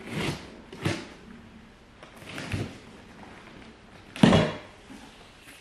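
Cardboard box being opened: its tape slit with a knife and its flaps pulled back, making four short scraping, rustling sounds, the loudest about four seconds in.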